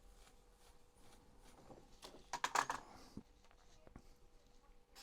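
Faint clicks and taps from small tools being handled on a workbench, with a short cluster of clicks about two and a half seconds in, over a faint steady hum.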